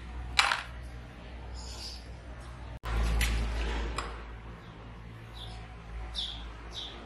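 Sharp metallic clinks of a steel crucible of molten aluminum being handled over a sand mold, with a low steady hum that comes in about three seconds in.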